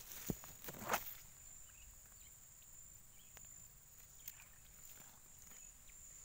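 Steady high-pitched drone of insects, with two brief rustling knocks in the first second and a few faint ticks later.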